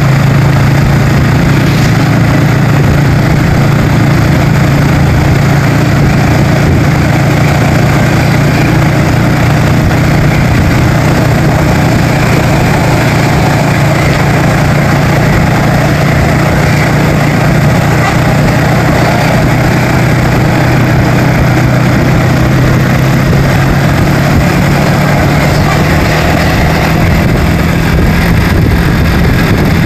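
A vehicle engine running steadily while under way, a constant low drone with road noise over it.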